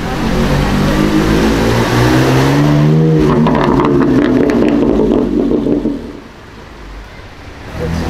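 BMW M4's twin-turbo straight-six accelerating hard, its exhaust note rising in pitch for about three seconds. The note then drops and breaks into a loud string of exhaust crackles and pops for a few seconds before dying away.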